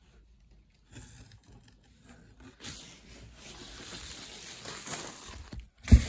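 Plastic bubble-wrap packing and cardboard model boxes being handled and rustled, building from about halfway in, with a sharp knock just before the end.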